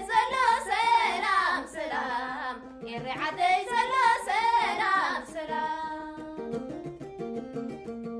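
Women singing over a plucked krar (Eritrean lyre). The voices break off a little past halfway and the krar plays on alone.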